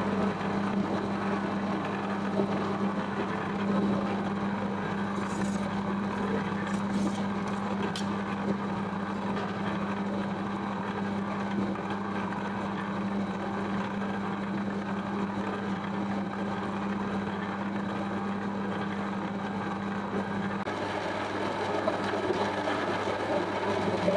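Electric spiral dough mixer running, its hook churning flour and dough in the metal bowl: a steady motor hum with a few light clicks. About 21 seconds in the steady hum gives way to a rougher machine noise.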